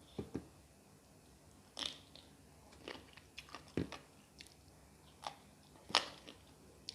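Close-up eating sounds: a person chewing and biting food, with irregular short crunches and wet smacks, the loudest about six seconds in.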